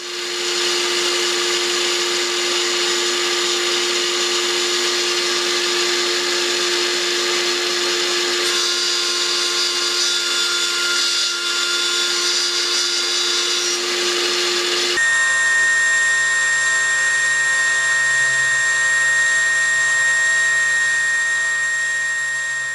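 Bench milling machine running steadily, its motor and spindle giving a constant whine. About fifteen seconds in the sound cuts abruptly to a different steady machine hum.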